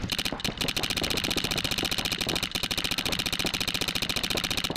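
Empire Axe electronic paintball marker firing in a rapid, even stream of shots, many per second, heard up close from a camera mounted on its barrel.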